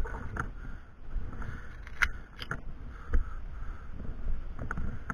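Irregular light clicks and knocks, about half a dozen, over a low rumble of handling and wind on a body-worn microphone.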